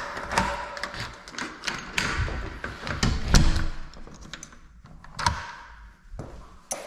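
A run of handling clicks, taps and knocks, irregular and close together, with the loudest knock about three seconds in.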